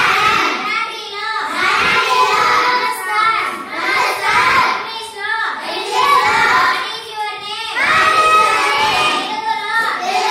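A child's voice reciting lines aloud in a sing-song chant, phrase by phrase with short pauses between.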